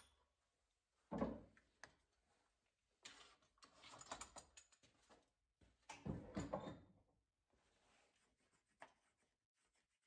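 Short clunks, clicks and scrapes from hands working a stopped wood lathe's headstock and the turned wooden vase on its metal mandrel, in three groups: about a second in, from about three to four and a half seconds, and around six to seven seconds.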